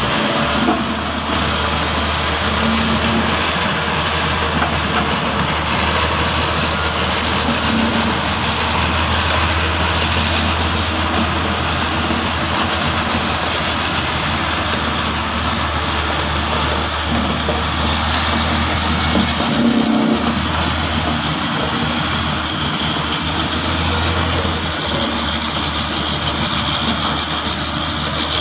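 Diesel engines of a single-drum vibratory roller and a crawler bulldozer running as they work loose soil. The sound is a steady low drone with a rough mechanical rattle over it.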